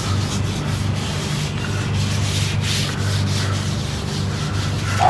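Cloth or paper towel rubbing oil over the steel cooktop of a Blackstone griddle: a steady wiping sound, laying down a thin protective coat against rust.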